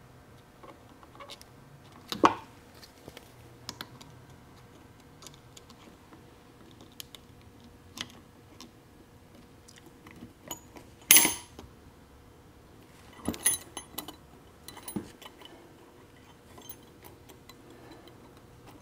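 Snap-ring pliers and a steel snap ring clicking and clinking against a T5 five-speed transmission mainshaft and its gears as the tight-fitting second-gear snap ring is worked into place. Scattered light metal clicks with a few sharper clinks; the loudest comes about eleven seconds in and rings briefly.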